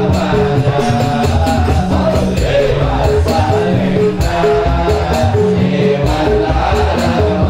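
Instrumental music interlude with a steady beat: a bass line, a repeating melody and jingling hand percussion such as a tambourine.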